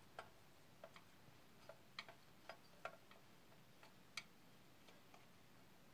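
A few faint, irregular small clicks of a screwdriver turning the thermostat adjustment screw of an electric iron. The screw is being tightened to cure overheating.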